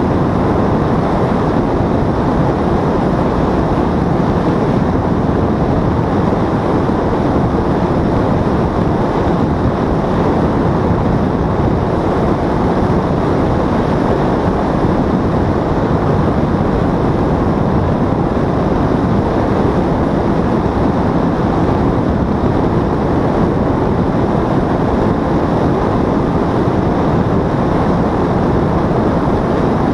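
Paramotor engine and propeller running steadily in flight, mixed with wind rushing over the microphone. The sound holds a constant level, with no change in throttle.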